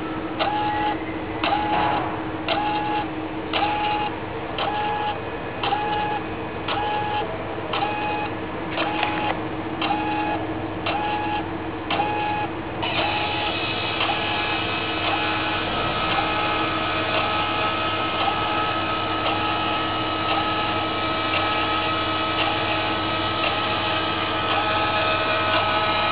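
Motor drive of a WELDY-RAIL welding carriage running. For about the first half a whirring tone and click repeat evenly, a little more than once a second. From about halfway it changes to a steady whine.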